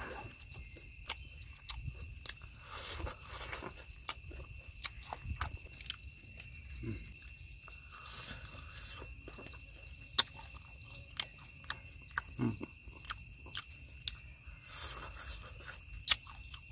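Close-up chewing of a cooked tarantula: irregular crisp crunches as its legs and body are bitten and chewed, with wet mouth sounds between.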